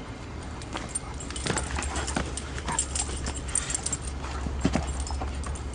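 Two Great Danes play-fighting: paws scuffling and knocking on dirt, with a few short dog vocal sounds among the scrapes.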